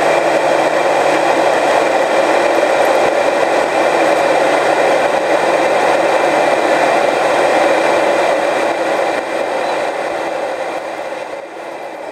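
Steady cabin noise of an Airbus A320-family jet airliner in cruise: the rush of air and engine noise, with a faint low hum underneath. It grows somewhat quieter for a few seconds near the end.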